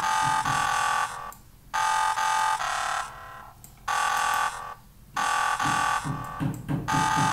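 Background electronic music: sustained synthesizer chords that break off for short pauses, with a pulsing bass coming in near the end.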